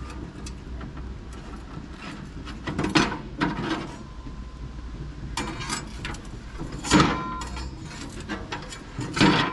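Grill hardware being handled: metal scraping and clanking, with sharp knocks about three, seven and nine seconds in.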